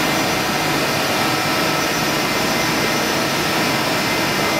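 DMG DMU 70 eVolution five-axis CNC machining centre running with a steady noise and faint steady whines while its swivelling rotary table tilts back to level.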